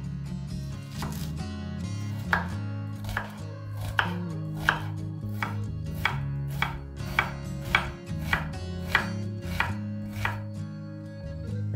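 Kitchen knife chopping an onion on a wooden cutting board: a steady series of sharp knocks of the blade on the board, about one every two-thirds of a second, stopping about ten seconds in.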